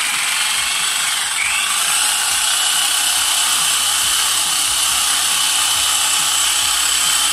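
Corded electric drill running steadily at speed, driving the blade of a blender cup fitted to its chuck as a homemade blender, blending a smoothie.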